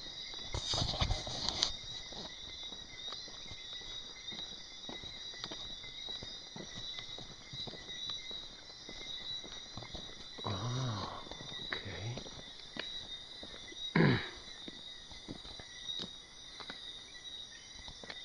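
Night chorus of crickets and other insects: a steady high-pitched trilling. Scattered small clicks and knocks sound over it, with a sudden loud knock about three-quarters of the way through.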